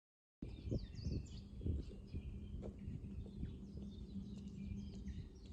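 Small birds chirping repeatedly over a low outdoor rumble and a faint steady hum, starting about half a second in.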